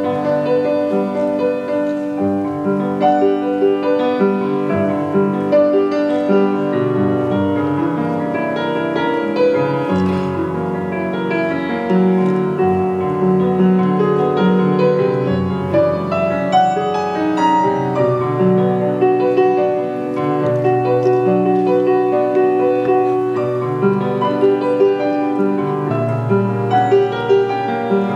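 Piano playing an unbroken piece of music, with notes and chords following one another without pause.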